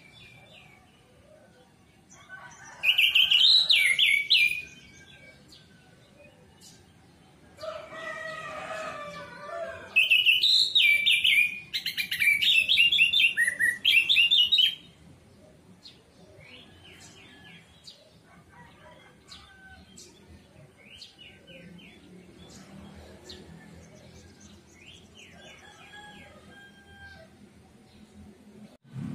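Orange-headed thrush singing: two loud bursts of rapid, high whistled notes, one about three seconds in and a longer one about ten seconds in, with a quieter, lower phrase between them and soft scattered chirps for the rest.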